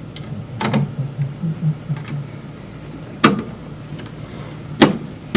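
Sharp metallic clicks and knocks of screwdrivers working screws into a flat-panel TV's sheet-metal chassis: one about a second in, another about three seconds in, and two louder ones near the end.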